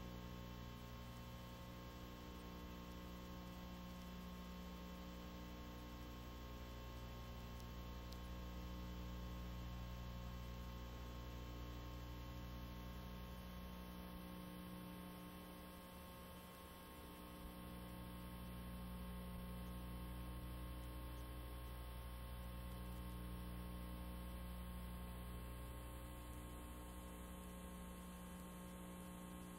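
Faint, steady electrical mains hum over a low hiss, with no other sound.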